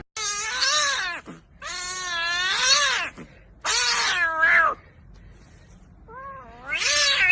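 A domestic cat giving four long, drawn-out meows, their pitch wavering up and down, with short pauses between them.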